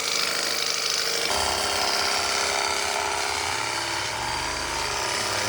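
Portable pressure washer's electric motor and pump running steadily, spraying a shampoo-and-water foam mix: a steady hum over the hiss of the spray, which takes on a lower rumble a little over a second in.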